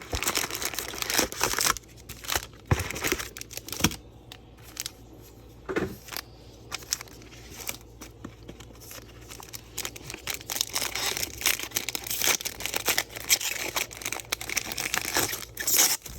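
Trading-card pack wrappers and box packaging crinkling and tearing as they are opened by hand, in an irregular run of crackly rustles that quiets for a few seconds in the middle.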